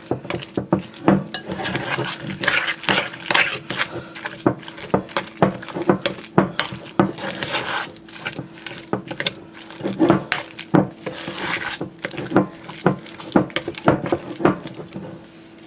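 Metal spoon stirring and scraping a thick cream cheese, cheddar and bacon mixture around a ceramic bowl, with frequent irregular clinks and scrapes against the bowl's sides. A steady low hum runs underneath.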